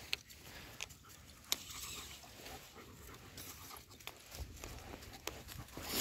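Dogs panting on a walk, with a few scattered sharp clicks and rustles of paws on dry leaves and gravel.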